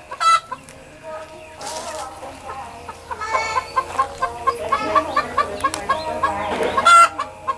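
Chicken clucking while settling on a roost in a tree: a run of short, evenly repeated clucks, with a sharper short call just after the start and another near the end.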